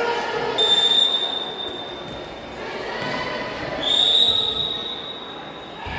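Referee's whistle blown twice in long high blasts about three seconds apart, each trailing off slowly in the gym, over a murmur of crowd noise.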